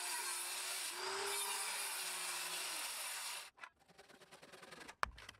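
Circular saw cutting across a 6x6 timber post, its motor whine steady under the blade noise until it stops about three and a half seconds in. Faint handsaw strokes finishing the cut follow, then one sharp knock near the end.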